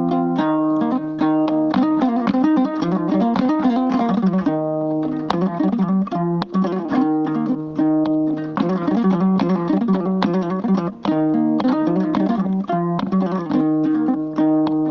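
Fulani hoddu, a skin-covered plucked lute, playing a fast run of plucked notes in a repeating melodic pattern.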